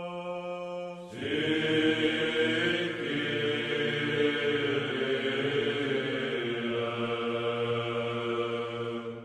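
Byzantine chant from an Orthodox liturgy: a single held sung note, then about a second in, louder chanting of the congregation's sung response over a steady low drone note. It dies away near the end.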